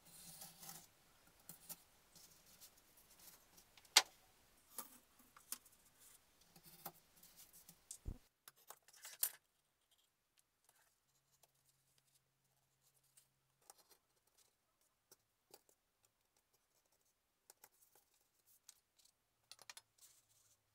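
Craft knife scraping through thin card along a ruler, with scratchy cutting strokes and sharp clicks. The loudest click comes about 4 s in and a dull thump just past 8 s. After that it goes nearly quiet, with only scattered faint ticks of the card being handled.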